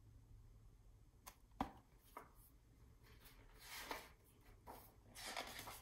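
Faint page turning of a hardcover picture book: a few soft taps and knocks, then paper rustling twice in the second half as the page is turned.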